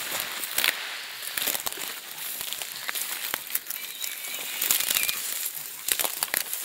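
Dry grass and scrub rustling and crackling against the body and camera while pushing through dense undergrowth, with many sharp snaps of twigs and stems.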